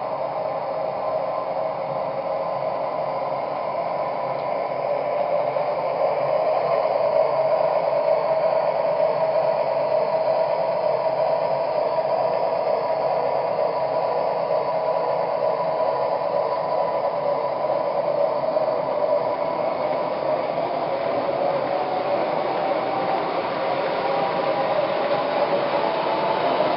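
MTH Railking O-gauge R-17 subway model train running along the layout's track: a steady whirring rumble of motor and wheels with a held whine, growing a little louder a few seconds in.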